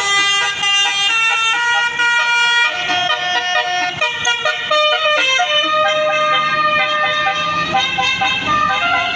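Bus 'telolet basuri' multi-note musical horn playing a tune of stepped held and short notes. The sound changes character about three seconds in.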